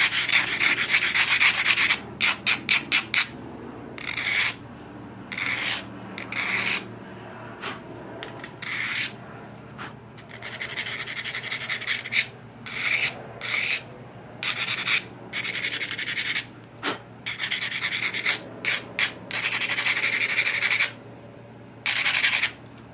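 Abrader stone scraped back and forth along the edge of a stone biface, grinding the edge to set up strong, heavy platforms for pressure flaking. The strokes come in runs: some long and continuous, others short and quick, with brief pauses between.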